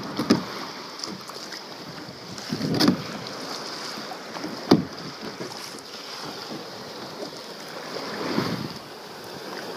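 Kayak being paddled on open water: water sloshing and splashing along the plastic hull with several louder paddle-stroke swells and one sharp knock about halfway through, and wind on the microphone.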